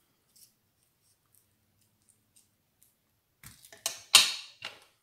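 Small craft scissors snipping: faint ticks of handling at first, then a quick run of four or five cuts in the last second and a half, the loudest just after four seconds.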